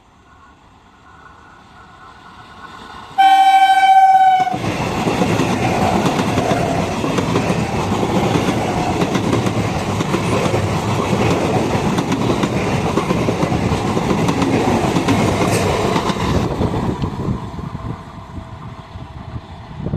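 Indian Railways train approaching fast, sounding one short blast of its horn about three seconds in, then rushing past with loud wheel clatter on the rails for about twelve seconds before fading away near the end.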